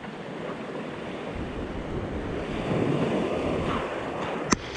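Small waves breaking and washing up a pebbly beach, with the wash swelling about halfway through. A single sharp click comes just before the end.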